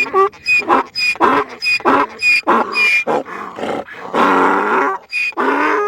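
An animal calling in a rapid series of short, rough calls, about three a second, with one longer, harsher call about four seconds in.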